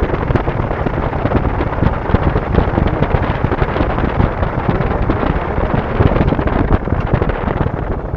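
Heavy wind buffeting on a motorcycle-mounted action camera's microphone while riding a Suzuki Gixxer SF, its single-cylinder engine running beneath the wind rumble. The buffeting eases near the end as the bike slows.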